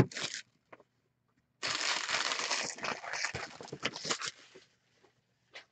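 Card packaging crinkling and tearing as a sealed box of hockey cards is opened. A loud stretch of crinkling starts about one and a half seconds in, then breaks into scattered crackles.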